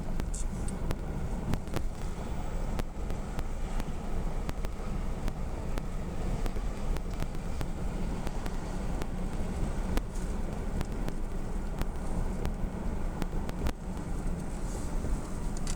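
Lincoln Town Car cabin while driving: a steady low rumble of engine and road noise, with a few faint scattered clicks.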